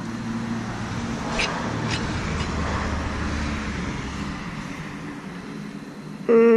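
A road vehicle passing nearby, a steady rumble and hiss that swells and then fades, with a couple of faint clicks. Near the end a sudden loud pitched squeak starts.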